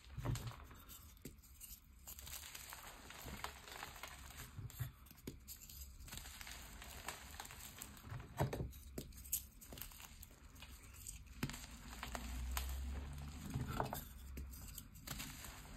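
Hands crushing and crumbling gym chalk blocks and loose powdery chalk: a continuous run of soft crunches and fine crackles, with a sharper crunch a little past halfway.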